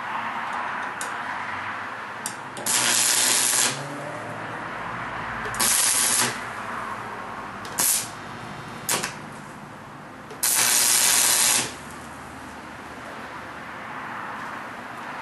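Arc welder laying tack welds: five bursts of hiss, two of about a second and three shorter, with pauses between them.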